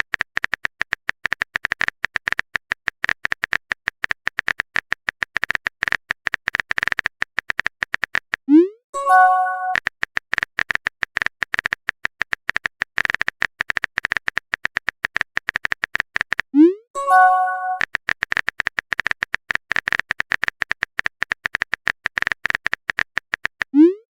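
Rapid keyboard-typing clicks of a texting-story sound effect, broken every eight seconds or so by a short rising pop and a brief chime as a chat message is sent.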